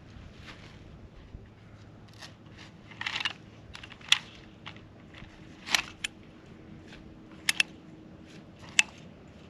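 A Cliq compact camping chair being unfolded by hand: short rustles of its fabric and a string of sharp clicks as the legs and frame snap out, two clicks in quick succession late on.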